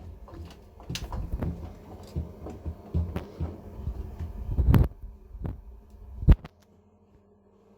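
Zanussi ZE 16 washing machine thudding and knocking irregularly as its drum spins an extremely unbalanced load. A last hard knock comes near the end, then only a faint hum is left.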